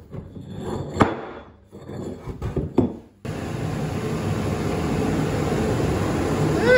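A few sharp wooden knocks as blocks of wood are set down on the organ's wooden wind chest. About three seconds in, a steady rush of air with a low hum starts: the organ's electric blower running.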